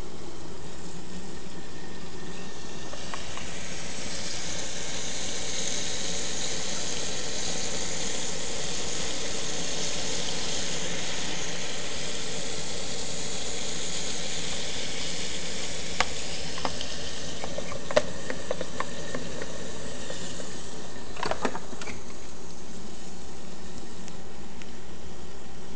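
AquaC Remora hang-on-back protein skimmer running: a steady fizzing hiss of air-laden water and bubbles pouring through its outlet box, with the pump running underneath. The hiss is brighter for a stretch in the first half, and a few small clicks come about two-thirds through.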